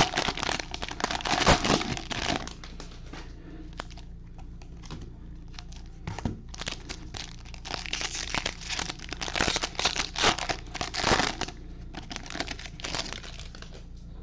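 Cellophane wrapper of a trading-card cello pack crinkling and tearing as it is opened by gloved hands. It comes in bursts: for the first two seconds, then again from about six to eleven seconds, with a quieter stretch between.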